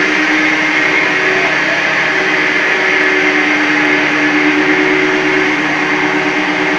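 Plastic recycling mother-baby extruder line running: a steady mechanical whir from its motors and drives, with a constant hum underneath.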